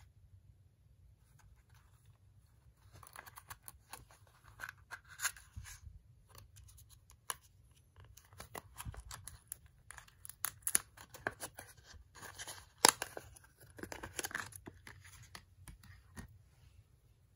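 Stiff clear plastic blister pack being handled and opened to free a small metal tool: irregular crackling and scratching with sharp clicks, the loudest click about three quarters of the way through.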